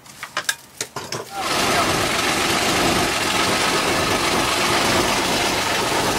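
A few sharp clicks and knocks, then about a second and a half in the sailboat's inboard engine starts and runs loud and steady, heard inside the cabin, with the old starter motor refitted.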